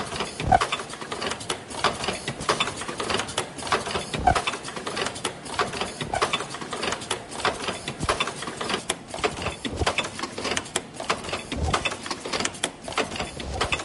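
Automatic disposable medical mask production line running: a dense, fast clatter of mechanical clicks and knocks, with an occasional heavier thump.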